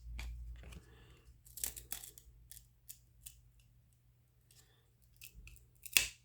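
Baseball trading cards being handled and pulled apart: a run of short, sharp card snaps and paper crackles at uneven intervals. The cards are stuck together, so separating them leaves paper on a card.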